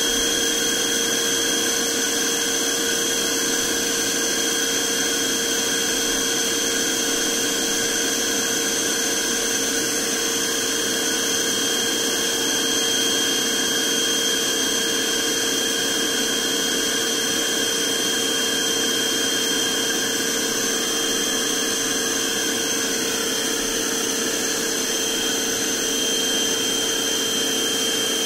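Novete VT-DH003 cordless handheld vacuum cleaner running steadily: an even motor whine with a rush of air and several constant high tones.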